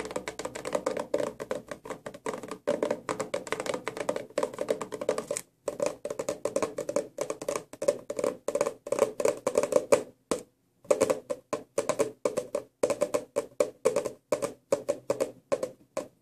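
Fingers tapping rapidly on a small cardboard perfume box, with short breaks about five and ten seconds in.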